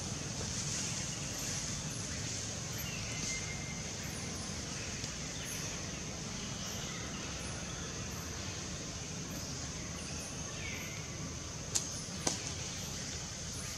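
Steady outdoor ambience: an even high-pitched hiss, with a few faint short chirps now and then and two sharp clicks close together near the end.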